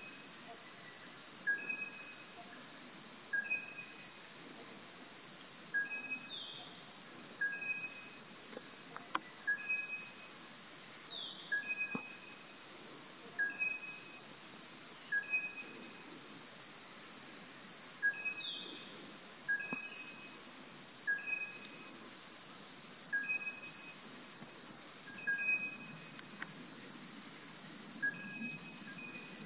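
Forest ambience: a steady, high-pitched insect drone, with short two-note calls repeating every second or two and a few high whistles that fall in pitch.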